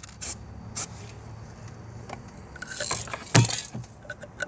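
Ignition coils and small parts being handled: light plastic-and-metal clicks and rattles, with one sharp knock about three and a half seconds in, over a low steady hum.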